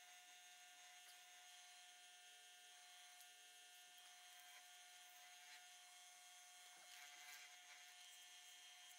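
Near silence, with a faint steady hum from a running wood lathe's motor.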